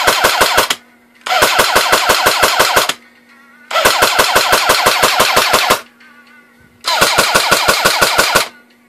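A&K 249 airsoft electric machine gun firing full-auto bursts on a 6-volt ride-on-toy battery. The end of one burst is followed by three bursts of about one and a half to two seconds each, at a slow rate of about seven shots a second, which the owner calls pretty unspectacular.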